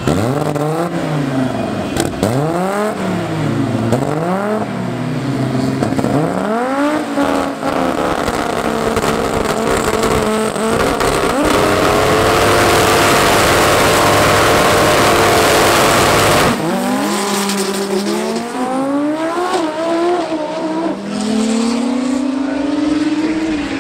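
Turbocharged five-cylinder engine of an Audi S2 drag car revving up and down in quick blips, then held at high revs. A very loud stretch at full revs with tyre noise follows and cuts off suddenly. After that the engine is heard climbing in pitch through several gear changes as the car runs down the strip.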